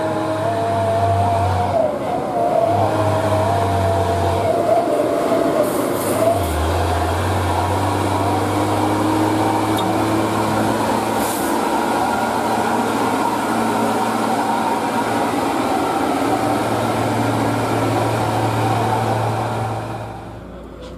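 Diesel engine of a loaded Hino 500 dump truck labouring up a steep grade: a loud, steady low drone with a wavering whine over it for the first few seconds. The sound drops off sharply near the end.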